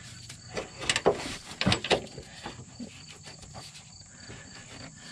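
Hand tool clicking and knocking against metal as the bolt on a rubber suspension helper spring is snugged down, a cluster of louder knocks between about one and two seconds in. Crickets chirp steadily in the background.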